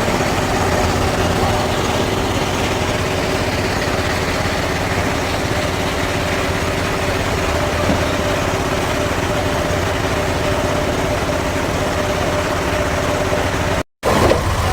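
Sawmill machinery engine running steadily. It drops out for an instant near the end.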